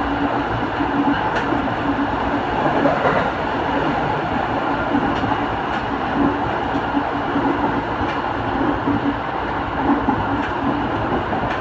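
Train running at speed, heard from inside the passenger car: a steady rumble of wheels on rail, with scattered sharp clicks from the track.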